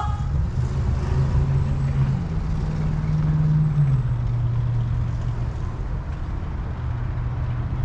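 A steady low engine hum from a vehicle, its pitch rising a little about two seconds in and dropping again just before the four-second mark.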